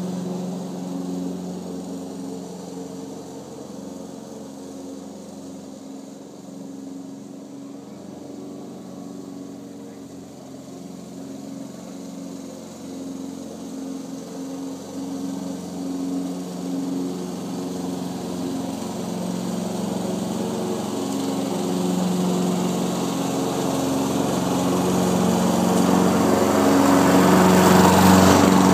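Walk-behind lawn mower engine running steadily while mowing grass. It drops quieter as the mower moves away, then grows steadily louder as it comes back and rolls right over near the end.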